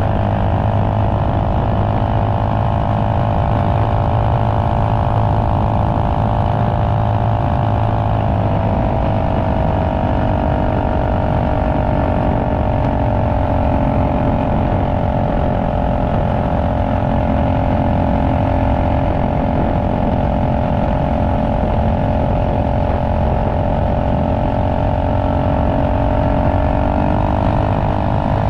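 Trailmaster MB200X minibike's Tillotson 225 cc single-cylinder four-stroke engine running at a steady cruise, its pitch dropping slightly about eight seconds in, holding, then rising again near the end.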